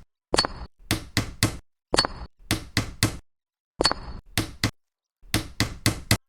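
Small tools tapping on miniature building materials: sharp knocks and clinks in quick groups of three to five taps, with abrupt silent gaps between the groups. Some groups open with a short, high metallic ring.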